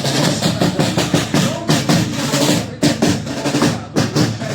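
Loud music with a fast, driving drum beat: snare and bass drum strokes in quick succession over low pitched instruments.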